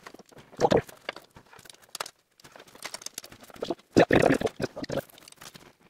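Tent pole sections knocking and clicking against each other as they are fitted together end to end, with the loudest clatter about four seconds in.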